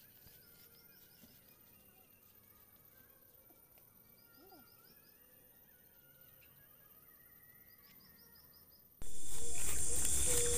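Faint outdoor ambience with a small bird giving short runs of quick high chirps, three times over. About nine seconds in it cuts to a loud, steady high hiss of a night insect chorus.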